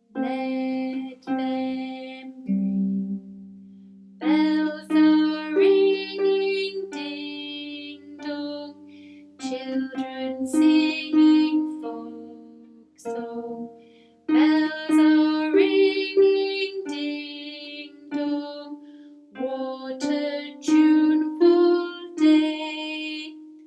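Harp played with the left hand: single plucked notes around middle C picking out a simple beginner tune, each note ringing and fading. The notes come in short phrases with brief gaps, and the final note rings on near the end.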